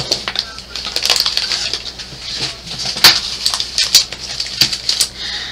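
Plastic packaging crinkling and rustling as items are handled, with scattered clicks and a sharper tap about three seconds in.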